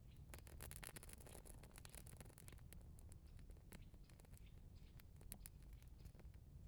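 Faint scratching and scraping with many small dry clicks, busiest in the first couple of seconds.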